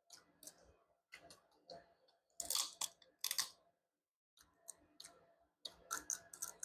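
Snow crab leg shell being cracked and snapped open by hand, close to the microphone: a string of short, sharp crunches and cracks, the two loudest about two and a half and three and a half seconds in, with more near the end.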